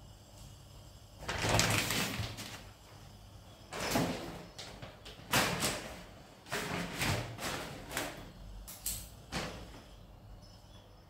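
Granular cat litter poured from a plastic bag into a plastic litter box, in several separate noisy spills, the first about a second in.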